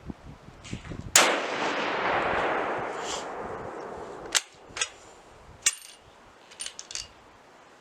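A single shot from a MAS 36 bolt-action rifle in 7.5 French, with a rolling echo that fades over about three seconds. It is followed by several sharp metallic clicks and clacks as the bolt is worked to eject the case and chamber the next round.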